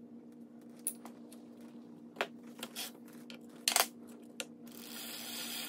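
Light handling clicks and knocks of a plastic bike pedal, grease tube and metal crank arm as the pedal is greased and lined up to be threaded on, the loudest cluster about two-thirds of the way in. A steady low hum runs underneath, and a soft hiss comes in near the end.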